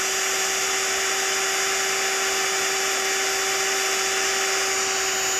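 Parkside PBSA 12 D4 12-volt cordless drill driver running freely at a steady speed with a constant whine, its closed keyless chuck spinning true without wobble.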